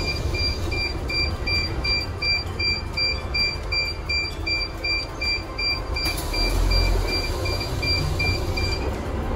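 Low rumble of a Mitsubishi Fuso FE84 city bus heard from inside the cabin while driving, with a rapid electronic beeping, about three beeps a second, that stops shortly before the end.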